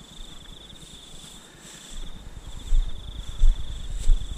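Insects trilling steadily in a continuous, finely pulsing high chorus. From about two seconds in, low rumbling bumps on the microphone join in and are the loudest sound, peaking a few times.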